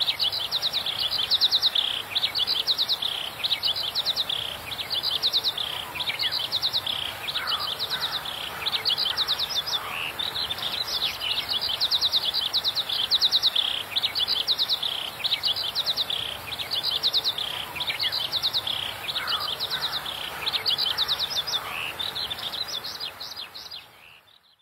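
Birds chirping in quick repeated trills, one phrase about every second and a bit, with occasional lower downward-sliding calls. The sound fades out near the end.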